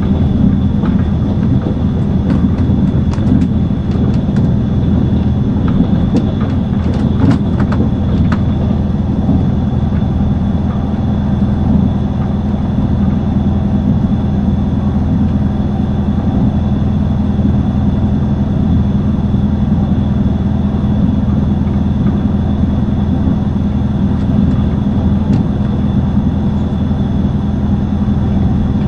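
Passenger train running along the track, heard from inside the carriage: a steady low rumble, with a short run of sharp clicks between about three and eight seconds in.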